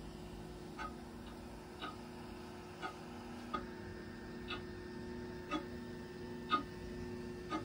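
Steady ticking, about one tick a second, over a low steady hum.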